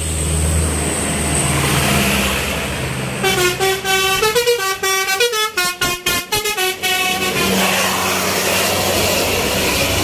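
Heavy-vehicle engine running past, then about three seconds in a bus's "telolet basuri" multi-tone horn plays a quick stepped melody for about four seconds before the engine and road noise return.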